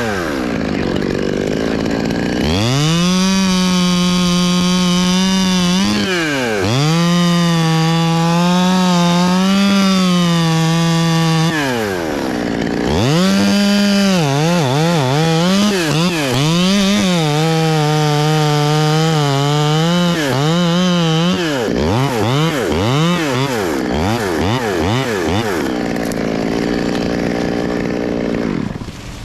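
Chainsaw cutting into very hard Australian pine (ironwood): the engine is held at high revs, sagging and picking up again several times, with quick dips in pitch as it is throttled in the hard wood. Near the end it falls to a low idle and stops.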